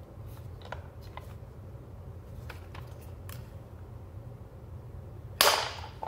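Faint clicks of hard plastic being handled, then a single loud, sharp plastic crack near the end as the housing of a wall-mounted single-phase CEE industrial socket comes apart from its blue socket body.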